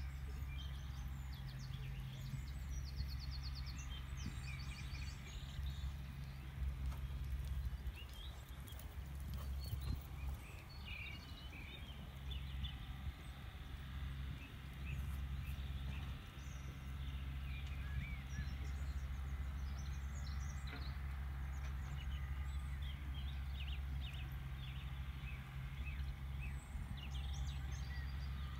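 Outdoor ambience: a steady low rumble, with small birds chirping and trilling here and there.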